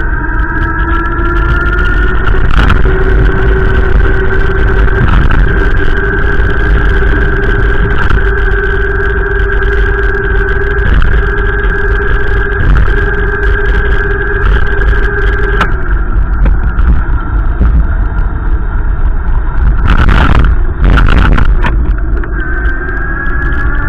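Car engine running while driving: its pitch climbs at the start, holds steady, drops away about two-thirds of the way through, and climbs again near the end. A heavy low rumble runs underneath, with a couple of brief loud surges shortly before the end.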